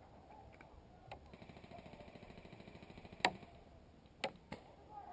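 Airsoft BBs smacking into a wooden plank fence: several sharp knocks, the loudest about three seconds in. Before it comes a faint, fast, even rattle of automatic airsoft fire.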